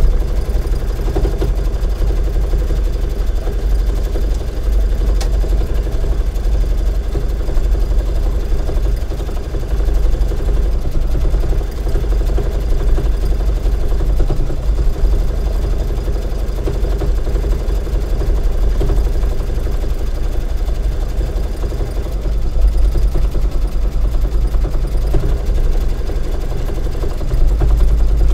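Baby Lock Luminaire 2 embroidery machine stitching out lettering in the hoop: a steady mechanical running sound from the needle and hoop drive, swelling a little louder near the end.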